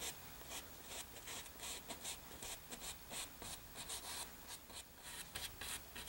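Faint, scratchy strokes of a paintbrush on canvas, working oil paint in short back-and-forth strokes, about three a second.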